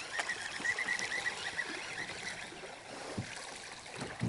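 Topwater fishing lure being retrieved across a calm lake surface: light splashing and gurgling water in its wake, with small scattered clicks.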